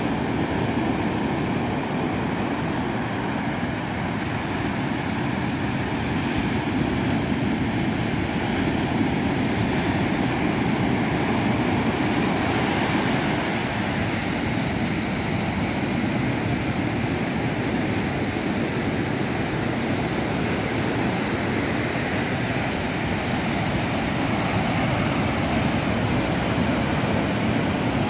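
Ocean surf breaking and washing up a sandy beach: a steady rushing roar of waves that swells and eases gently.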